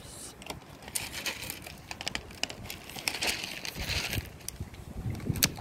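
Dry cat kibble poured out of a plastic container onto a concrete ledge: a run of sharp clicks and rattles with plastic crinkling, busiest about three to four seconds in.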